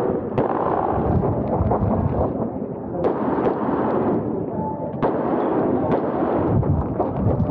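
Semi-automatic pistol fired several times at irregular intervals, each shot a sharp crack, over a dense steady noise.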